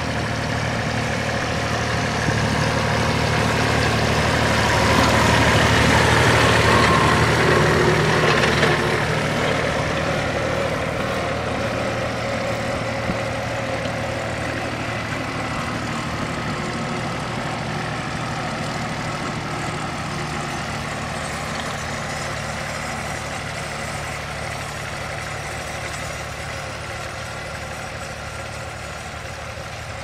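Allis-Chalmers Model B tractor's four-cylinder engine running steadily while pulling a plough, growing louder over the first several seconds and then slowly fading.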